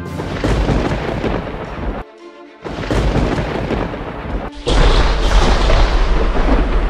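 A deep rumbling, booming noise, in two stretches: it drops away briefly about two seconds in, then returns and grows louder from about four and a half seconds on.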